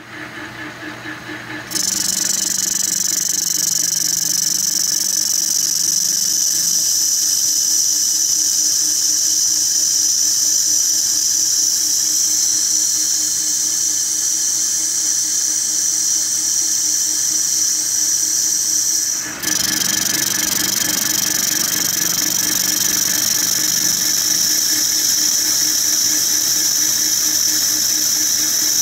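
Metal lathe turning a bronze bar, the cutting tool giving a steady high-pitched squeal over the hum of the running spindle. The squeal starts about two seconds in and drops out for a moment about two-thirds of the way through before resuming.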